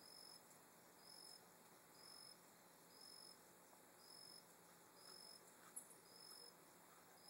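Faint insect call: a short high-pitched chirp repeating evenly about once a second over quiet background hiss.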